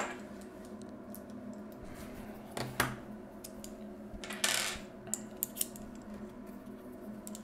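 Small hard parts, such as screws and small metal pieces, being handled and set down on a wooden desk during a speaker teardown. A sharp click opens it, two clacks follow a little under three seconds in, then a short scraping rustle about four and a half seconds in and three light ticks, all over a faint steady hum.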